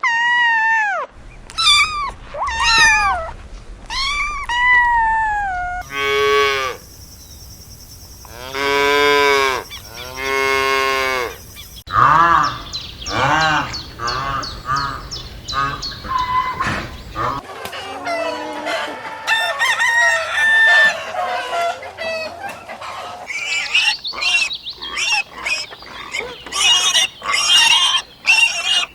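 A run of separate farm-animal recordings: a few short falling calls, then two long rooster crows, then chickens clucking with many short high calls to the end.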